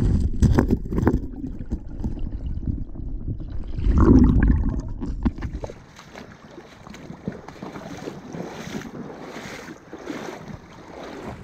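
Wind buffeting the microphone over the rush of river water, with a few handling clicks. The wind drops off about halfway through, leaving the steady hiss of the flowing river.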